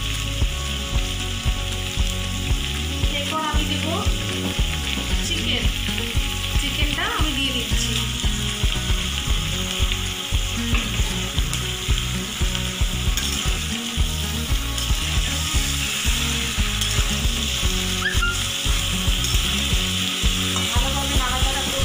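Vegetables and raw chicken frying in a kadai. A steady sizzle runs under the repeated scrape and knock of a metal spatula stirring them.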